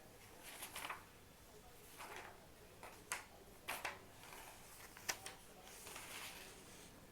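Faint paper rustling from a book being pawed by a cat, with several light, sharp taps in between.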